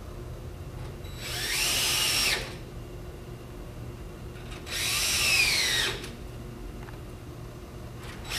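Cordless drill driving wood screws into a door lock's faceplate in two short runs, a third starting at the very end; in each run the motor whine climbs and then falls in pitch.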